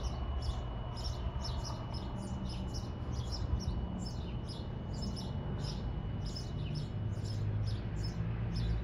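Small birds chirping rapidly and continuously, over the low steady rumble of a freight train moving away. A faint steady high tone stops near the end.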